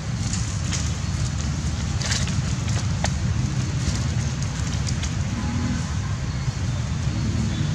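Steady low rumble of wind buffeting the microphone outdoors, with a few faint clicks about two and three seconds in.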